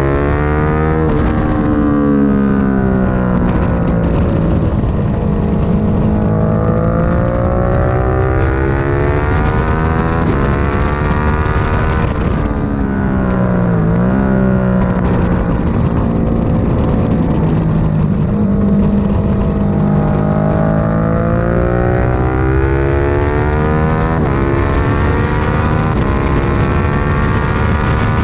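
Sportbike engine under hard riding on a race track, pitch climbing through each gear and stepping down at the shifts. About halfway through it drops to a low point as the bike slows for a corner, then climbs again under full acceleration, with wind rushing over the bike throughout.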